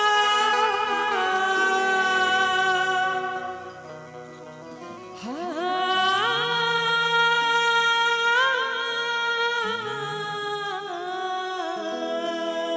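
Woman singing a bhajan into a microphone over musical accompaniment: long drawn-out notes without clear words, with wavering pitch. Her voice dips about four seconds in, then comes back with rising slides into high held notes.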